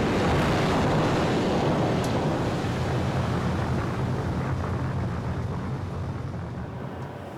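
Pallets of aircraft decoy flares igniting and burning inside a military ammunition storage box: a loud, steady rushing noise that slowly fades.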